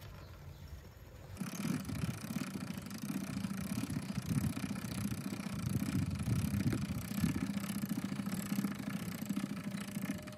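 A motor starts suddenly about a second and a half in and runs steadily with a low hum.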